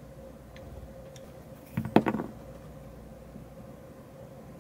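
Hands handling the opened metal chassis and shielding of a tube condenser microphone: a short burst of clicks and clatter about two seconds in, with a few faint ticks either side, over a faint steady hum.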